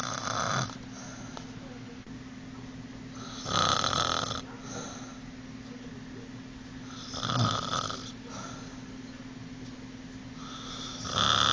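A sleeping woman snoring loudly and regularly: four snores about three and a half seconds apart, each followed by a softer breath.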